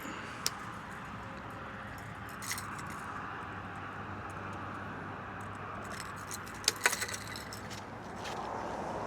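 Steady rushing background noise with a few sharp metallic clicks and jingles: one about half a second in, one at about two and a half seconds, and a louder cluster about seven seconds in.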